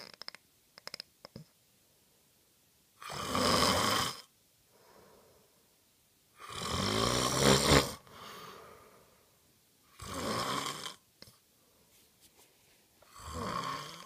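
A person snoring in sleep: four loud, rasping snores about every three seconds, the third the loudest and longest, with quieter breaths between them. A few faint clicks about a second in.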